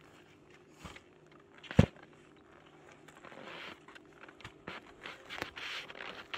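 Ski boots and skis scuffing and crunching in snow while a skier works a boot into a ski binding. A single sharp click or knock about two seconds in is the loudest sound, with a few lighter clicks later.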